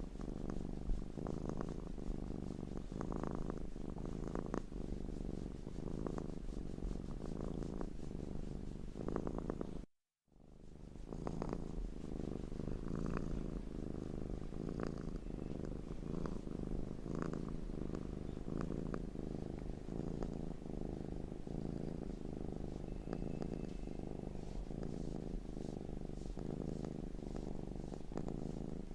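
Domestic cat purring steadily and close up, with a fast even pulse. The sound cuts out completely for a moment about ten seconds in, then resumes.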